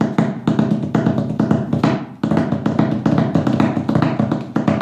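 Birch-veneer lap cajon played with the thumb technique: a quick, even run of light strokes, about six a second, used as filler notes like a hi-hat rhythm. There is a short break about two seconds in.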